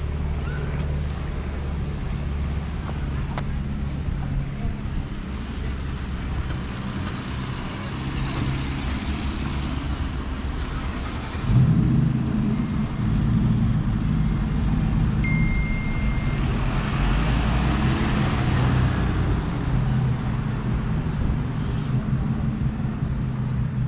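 City street traffic: the low, steady running of a heavy vehicle's engine, which gets suddenly louder about halfway through and stays loud, with a rushing hiss of passing traffic swelling and fading later on.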